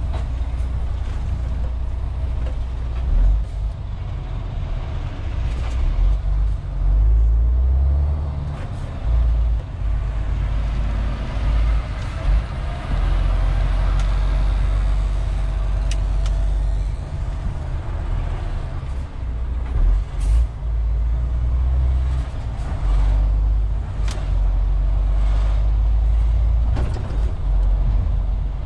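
MAN TGX 470 truck's six-cylinder diesel engine and road noise heard from inside the cab while driving: a steady deep rumble that swells and eases, with a few short knocks.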